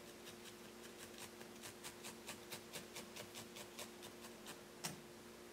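Felting needle stabbing rapidly and repeatedly into wool, faint, soft pokes at about four a second as the wool is sculpted, with a single sharper tick near the end.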